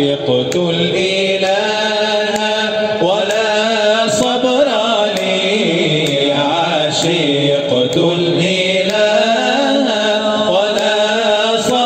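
A man chanting an Arabic Islamic nasheed, singing long, wavering, ornamented lines.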